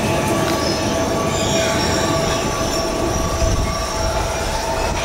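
Amsterdam metro train pulling away, rumbling with a steady motor whine. A high wheel squeal from the curving track sets in about a second and a half in and fades by about four seconds.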